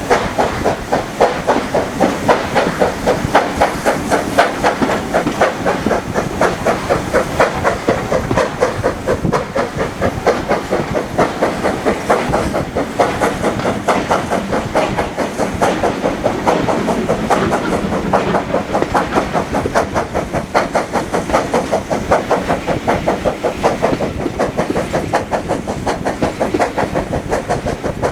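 Steam train running steadily, with a rapid, even rhythm of about three or four beats a second over a continuous hiss.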